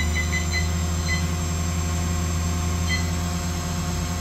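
Back spindle of a DMG Mori NTX 1000 mill-turn machine spinning a short workpiece at several thousand RPM: a steady low machine hum with faint short high chirps coming and going.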